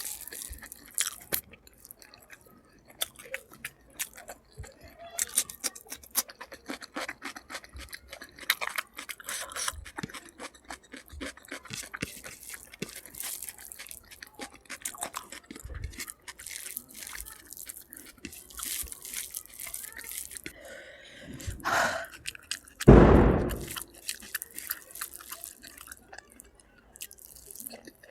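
Close-up sounds of a person chewing food, with many small wet clicks and soft crunches; a louder, longer mouth or breath sound comes near the end.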